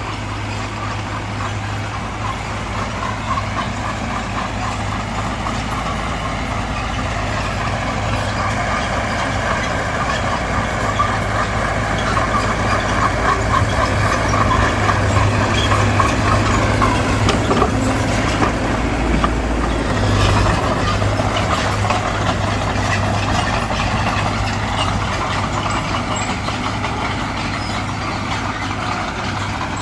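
Heavy diesel engine of an earth-moving machine working, revving up and down under load; it grows louder toward the middle, dips briefly, then picks up again.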